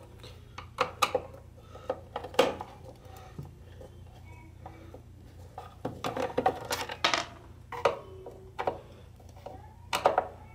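Phillips screwdriver working the screws out of a portable cassette radio's plastic back cover: scattered sharp clicks and scrapes of metal on screw and plastic, with a denser run of clicking and rattling about six seconds in.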